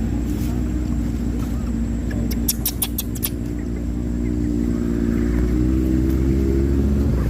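A motor vehicle's engine running steadily, its pitch rising a little in the second half. A quick run of about five sharp clicks comes between two and three seconds in.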